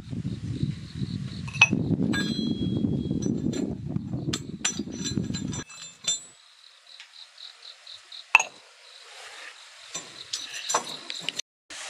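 Scattered high, glassy pings and clinks from freshly wood-fired glazed pots, typical of glaze crazing as the pots cool. A low rumble underlies the first half and cuts off suddenly about halfway, and an insect chirps in quick pulses later on.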